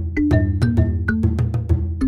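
Background music: a quick, steady percussive beat over a held bass line, with short pitched notes on top.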